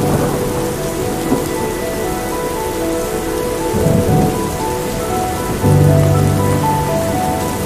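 Steady rain sounds under soft, slow background music of held synth notes, with a brief low rumble about four seconds in.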